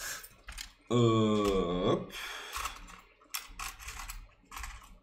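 Light clicks and rattles of small metal SIM card trays being handled and tried against a phone's SIM slot, a few separate clicks at the start and again in the second half. About a second in, a man's voice hums briefly.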